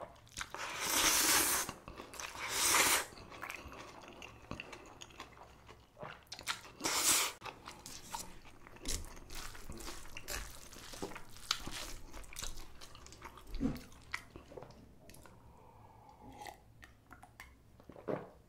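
Close-miked eating of spicy cold noodles and kimchi: steady wet chewing and crunching, with many small clicks and crackles. There are three longer, louder noisy rushes, about a second in, near three seconds and around seven seconds.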